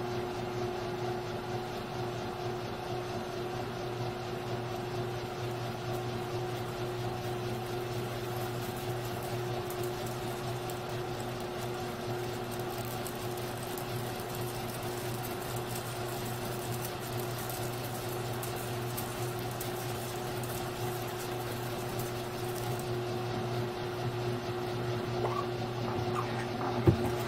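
Grizzly G1007 mill-drill running steadily with an even hum while its twist drill bores into a 6061 aluminum bar. A sharp click comes near the end.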